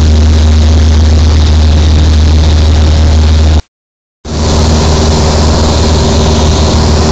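A light high-wing plane's engine and propeller running steadily, loud inside the cabin. The sound cuts out completely for about half a second a little past the middle, then comes back at the same level.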